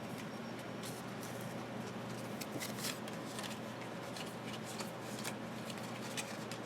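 Quiet rustle and scattered light clicks of cardboard football trading cards being handled and flipped through by hand, busiest about halfway through.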